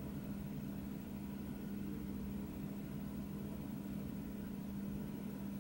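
Room tone: a steady low hum at one constant pitch, with no other sound.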